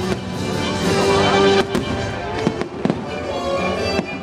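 Aerial fireworks shells bursting with several sharp bangs and crackles over the fireworks show's soundtrack music, heard through the park loudspeakers.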